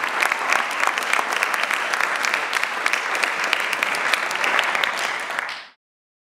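Audience applauding, a dense patter of many hands clapping, that stops abruptly near the end.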